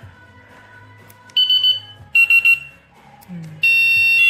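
Cuteefun door and window alarm's siren sounding through its tone modes: a short group of high beeps about a second and a half in, a quick run of three or four beeps about two seconds in, then a long steady high-pitched tone from about three and a half seconds in.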